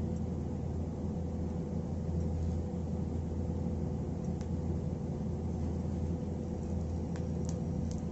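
Steady low hum and rumble, with a few faint clicks near the end.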